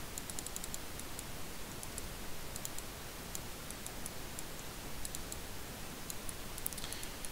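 Faint, scattered computer mouse clicks, a few light ticks in small clusters, over a steady microphone hiss.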